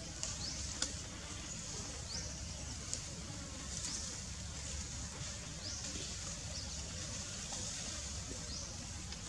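Outdoor ambience: a steady low rumble, with short high rising chirps every couple of seconds and two faint clicks.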